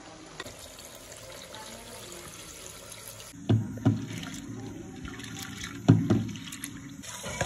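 Hand swishing and rubbing red lentils in a steel bowl of water to wash them, with several splashy sloshes starting about halfway in, the loudest near the end.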